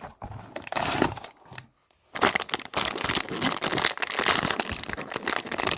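Crinkly packaging rustling and crinkling as a blind-box figure is unwrapped by hand. It comes in two stretches, with a brief pause just before two seconds in.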